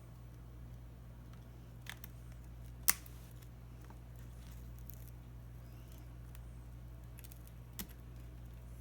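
A few sharp clicks of small repair tools against tablet parts, the loudest about three seconds in, over a steady low hum.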